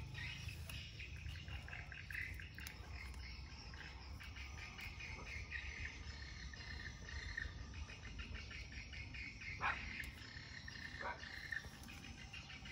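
Insects trilling steadily in the garden vegetation, a fast, even pulsing chorus, over a low rumble. A couple of short, sharp chirps stand out near the end.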